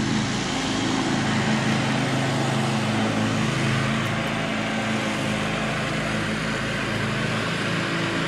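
A steady low engine hum, like a motor vehicle running, with a constant hiss over it.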